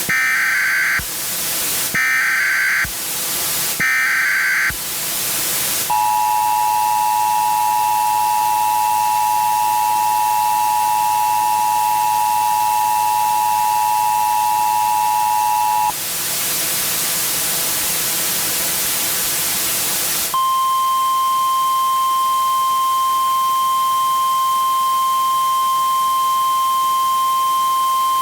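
Emergency Alert System tones that open a tornado warning broadcast. First come three short bursts of SAME header data, about two seconds apart. Then the two-tone EAS attention signal holds for about ten seconds, a few seconds of static follow, and near the end a single steady tone plays: the NOAA Weather Radio warning alarm.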